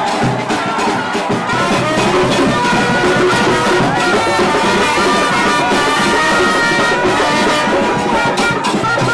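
Music led by brass horns playing long held notes, loud and steady throughout.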